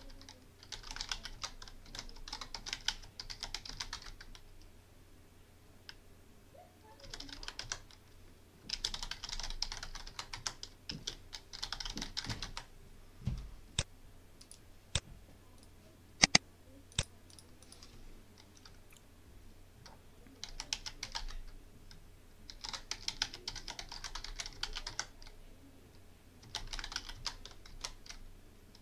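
Computer keyboard typing in several short bursts with pauses between them. About halfway through, the typing stops for a few single, sharp mouse clicks, the loudest sounds here, before the typing starts again.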